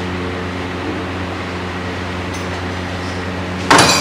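Steady mechanical hum of workshop machinery or ventilation, with a short loud metallic clatter near the end.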